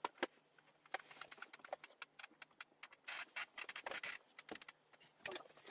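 Rapid run of light clicks, taps and scrapes from the wooden panels of a flat-pack bookcase being handled during assembly, with a denser scraping rustle about three seconds in.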